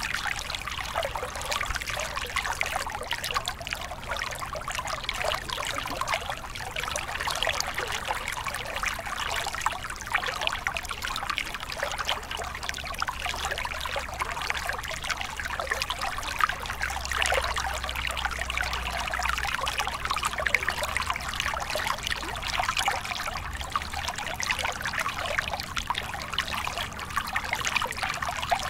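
Small stream spilling over rocks in a short cascade into a pool: steady trickling and splashing water.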